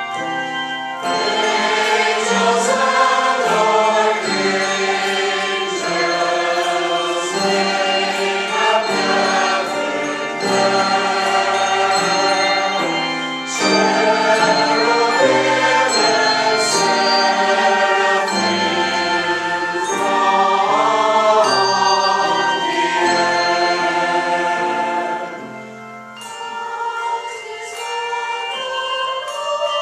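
A mixed community choir singing a Christmas song with instrumental accompaniment. The singing drops away about 26 seconds in, and the accompaniment carries on alone.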